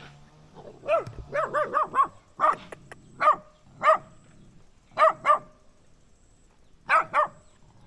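Dog barking: a quick run of five or six barks about a second in, then single and paired barks every second or so, and a last pair near the end.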